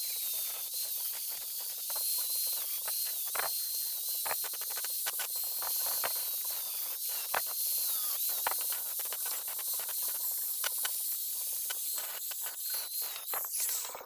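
Handheld angle grinder grinding a stainless steel tube: a steady hiss from the disc on the metal over a high motor whine that dips now and then under pressure, with scattered scraping ticks. The whine stops near the end.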